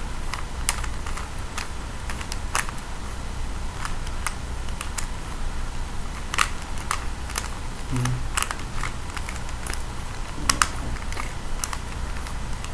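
Rubik's Cube being twisted by hand, its plastic layers clicking and clacking in quick, irregular turns.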